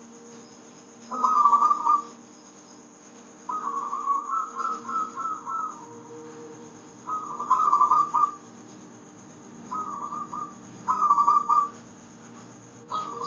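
A zebra dove (perkutut) gives its whistled, trilling coo in about six phrases, one of them longer, with short pauses between them. A soft, steady low drone runs underneath.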